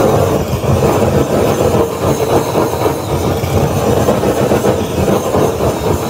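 Handheld butane blowtorch on a gas canister burning with a steady, low, fluttering rush of flame as it is swept over pig skin to singe off hair; the cook says the torch is a bit broken.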